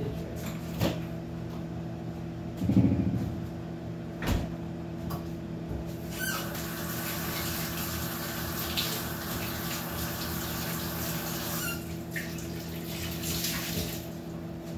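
Kitchen faucet running for about five seconds in the middle, over a steady low hum. A few knocks come before it, the loudest a thud about three seconds in.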